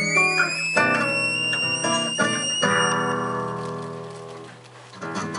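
Amplified instrument music: a few held chords with a high tone slowly gliding upward through the first couple of seconds, then a last long chord that fades away, followed by a brief gap and a new attack just before the end.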